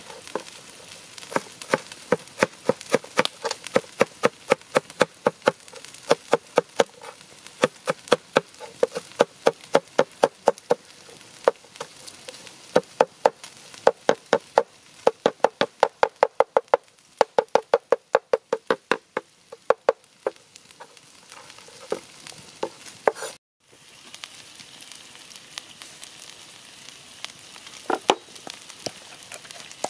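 Cleaver chopping fresh coriander on a wooden cutting board: quick, even strokes about four a second, in runs broken by short pauses. Near the end, a few knocks of a wooden pestle in a mortar.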